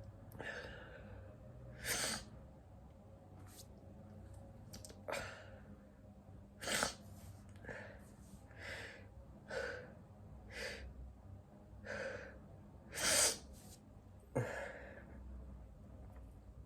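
A person sneezing over and over in a long fit, sharp sneezes alternating with gasping, breathy in-breaths; the loudest sneeze comes a little past the middle.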